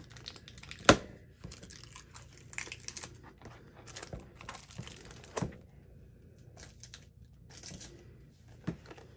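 Plastic wrapping on a paper pad being cut with scissors and pulled off, crinkling and tearing, with sharp clicks about a second in and again past the middle.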